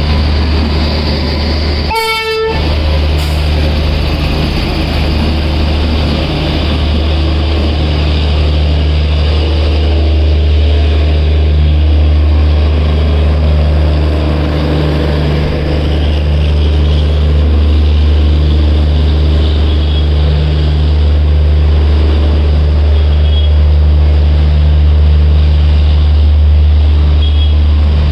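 Passenger train moving slowly past along a station platform: a steady low rumble and drone of the coaches and the generator car. About two seconds in, a short, single horn toot sounds, likely from the WAP7 electric locomotive at the head of the train.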